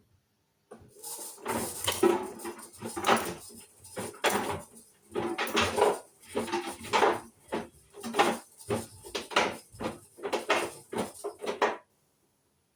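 Hoover washing machine drum turning at the start of a Mixed 30 wash, laundry and water sloshing in an uneven surge about once a second. The surges stop suddenly about a second before the end.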